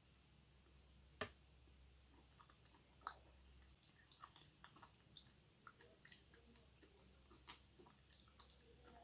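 Close-miked chewing of raw pork liver: many small, wet mouth clicks and squishes, with a sharper click about a second in and another near the end.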